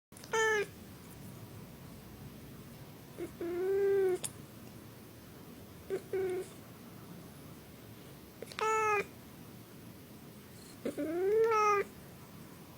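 Domestic cat meowing five times, each call under a second and a couple of seconds apart, the longer calls rising and then falling in pitch.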